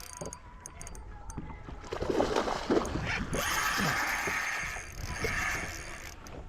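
Water splashing, loudest from about two seconds in until near the end.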